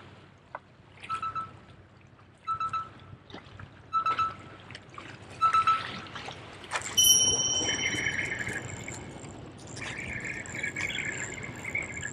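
Waves washing against jetty rocks, with short bursts of a spinning reel being cranked about every second and a half in a stop-and-go retrieve. About seven seconds in there is a sudden swish as the lure is cast, followed by line hissing off the spool.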